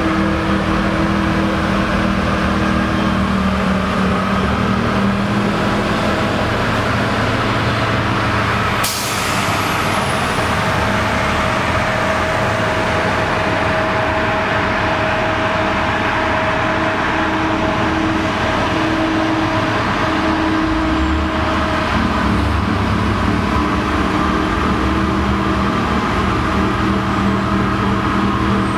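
Heavy diesel engines of snow-removal machinery running steadily: a snowblower throwing snow into a dump truck. A single sharp burst sounds about nine seconds in.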